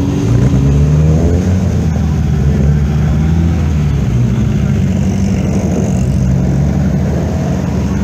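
Engines of several classic rally cars running at low speed as they pull away one after another in a queue, rising and falling in pitch with light throttle.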